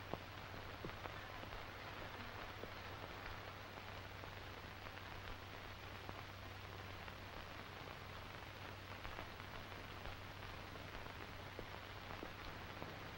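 Steady hiss with a low hum and occasional faint clicks and crackles: the background noise of an old 1940s film soundtrack.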